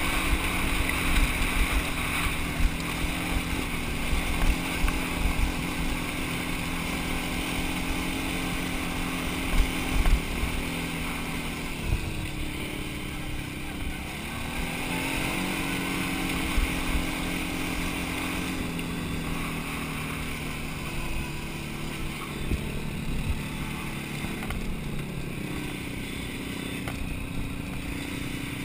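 Quad bike engine running under steady throttle on a rocky dirt trail. About twelve seconds in the revs drop briefly, then rise again.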